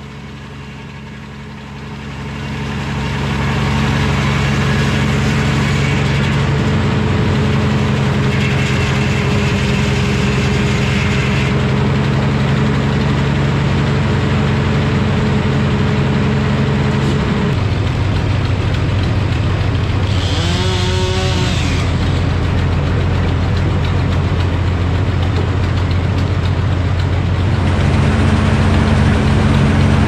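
Frick sawmill's big circular saw, driven by a 100-horsepower power unit, ripping a basswood log into a cant: the sound swells as the blade bites into the log about two seconds in and runs steadily under load. It changes about seventeen seconds in as the cut ends, with a brief squeal a few seconds later, and grows louder again near the end as the next cut begins.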